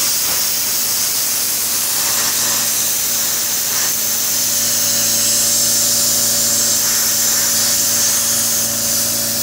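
Compressed-air blow gun hissing steadily as its jet is played along the outside of a welded steel seam, blowing air through any pinholes in the weld.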